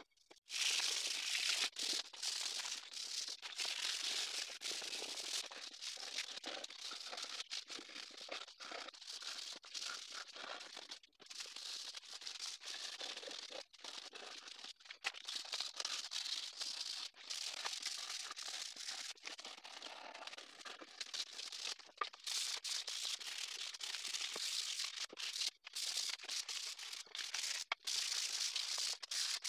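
Sandpaper rubbing by hand on wooden shelf boards, a continuous scratchy hiss broken by short gaps, with light knocks of the boards being handled.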